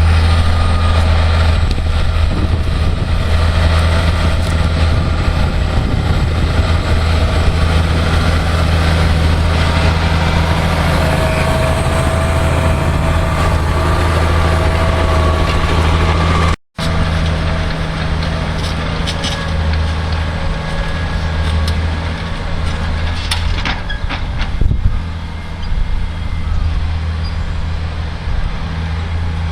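Massey Ferguson 6490 tractor's six-cylinder diesel engine running steadily under load, pulling a four-furrow plough. The sound cuts out for an instant about halfway through, and a few sharp clacks come a little past two-thirds of the way.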